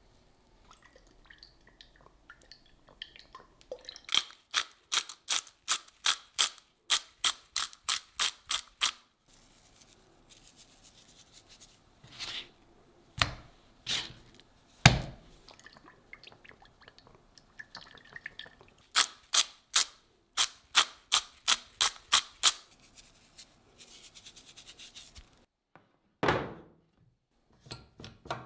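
A hand-turned salt grinder working over the steaks in two runs of sharp, even clicks, about four a second. Between the runs come a few dull thumps of the raw steaks being turned over on a plastic cutting board, and near the end a couple of separate knocks.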